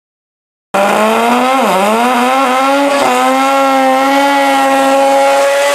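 Drag racing car's engine at full throttle launching down the strip. It cuts in abruptly about a second in, its pitch dips sharply once, then it holds a high, steady note.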